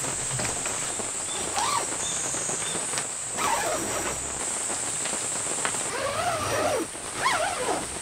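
Steady hiss of heavy rain, over which a small dog whines in a few short cries that rise and fall in pitch, the longest and loudest near the end.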